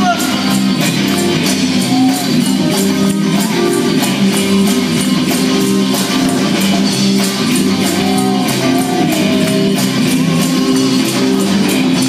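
Live band music: two electric guitars playing steady chords over an even, ticking high beat from the drum kit.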